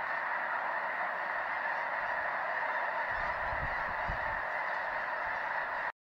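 A huge flock of geese calling and honking all at once, a dense, continuous chorus. A few low rumbles come through about halfway, and the sound cuts off suddenly just before the end.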